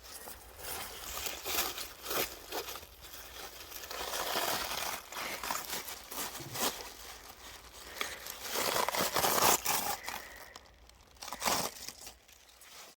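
Irregular crinkling and rustling handling noise, swelling and fading in uneven bursts, with a few sharper rustles near the end.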